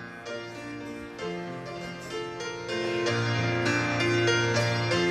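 Instrumental song intro on keyboard: slow held chords over a sustained bass note, growing louder a little under three seconds in.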